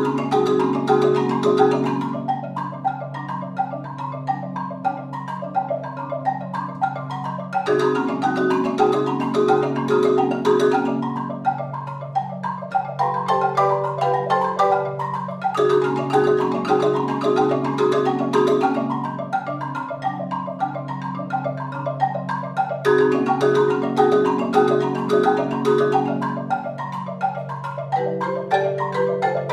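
Marimbas played by four mallet players in a fast, interlocking repeated pattern over a low bass line. The phrase comes round again about every seven to eight seconds.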